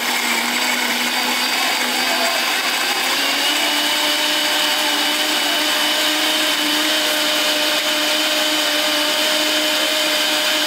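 Countertop blender running at full speed, whirring steadily as it purées fresh fruit into juice. Its motor pitch steps up slightly about three seconds in, then holds.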